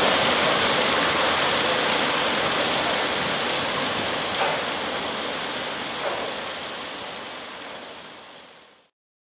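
Steady rushing of water, a smooth hiss with no engine beat or voices, fading away over the last few seconds and stopping just before the end.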